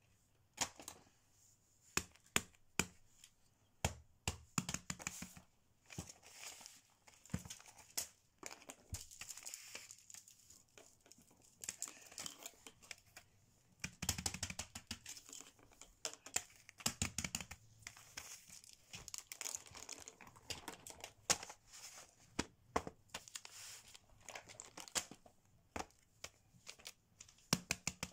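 Fidget toys being handled and set down on a plastic-covered paper sheet: irregular clicks and taps, with bursts of crinkling and rustling.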